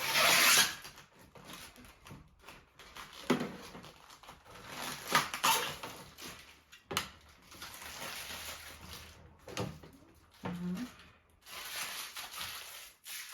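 Coffee machine parts and packaging being handled during an unboxing: stretches of rustling with several light clicks and knocks.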